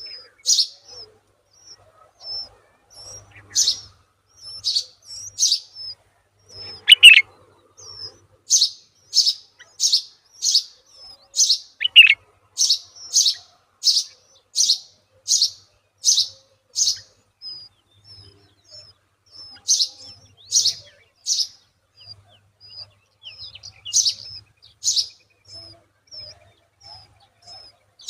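A small bird chirping: short, high chirps repeated about one or two a second in runs, with a couple of falling notes mixed in.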